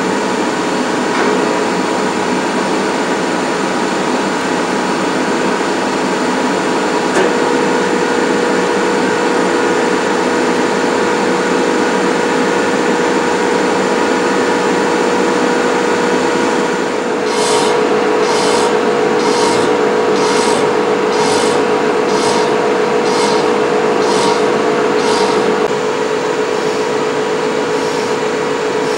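Large lathe turning a locomotive wheelset: a steady machine whine with the hiss of metal being cut. For several seconds past the middle, a rhythmic scraping pulse comes a little more than once a second, then stops.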